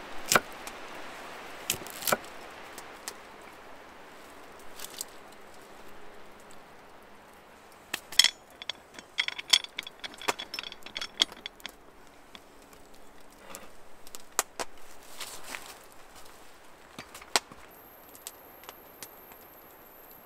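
A few knife strokes on a wooden cutting board. About eight seconds in, a cast-iron pot's lid clanks into place with a metallic clink that rings on for a few seconds, followed by scattered light clinks and taps.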